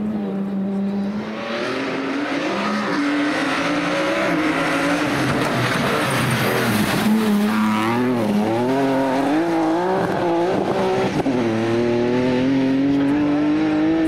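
BMW E36 3 Series rally car driven hard through a slippery muddy corner: the engine note rises and falls in quick steps as the throttle is worked and gears change, then climbs steadily as the car pulls away.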